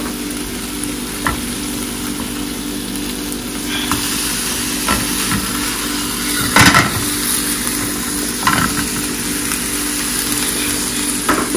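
Thin meat cutlets sizzling in a nonstick frying pan. About six and a half seconds in there is a loud scrape and clatter as a plastic spatula turns them, with a few lighter knocks of the spatula against the pan before and after.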